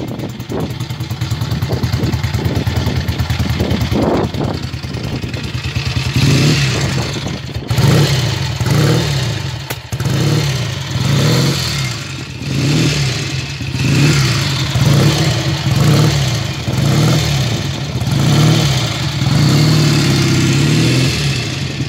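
1961 Norton Navigator's 350 cc parallel-twin engine running: steady at first, then from about six seconds in the throttle is blipped again and again, the revs rising and falling about once a second.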